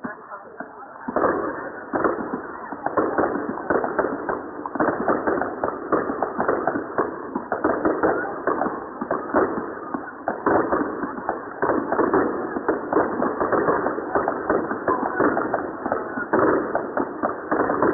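Fireworks crackling: a dense, rapid rattle of small sharp bangs that starts about a second in and goes on without a break.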